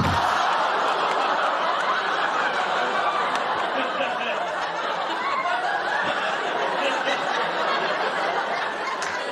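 Sitcom studio audience laughing: one long, sustained crowd laugh that eases off slightly near the end.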